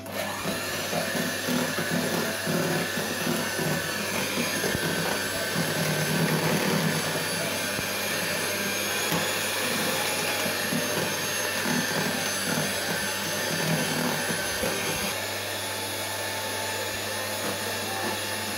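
Electric hand mixer running steadily, its beaters churning through thick pound-cake batter, with a faint high whine over the motor noise. It starts abruptly and eases slightly about fifteen seconds in.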